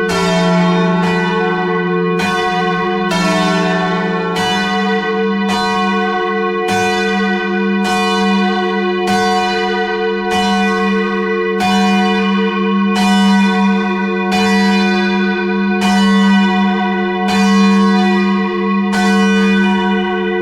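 Church tower bells, bells 7 and 8 of a ring of eight, being rung up: each swing sounds a strike, about once a second in a steady rhythm, with a low hum carrying on between strokes.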